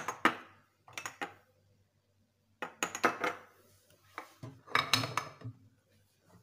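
Small glass jars and bowls clinking and knocking against each other and the stone countertop as they are lifted and set down, in four short clusters of clinks.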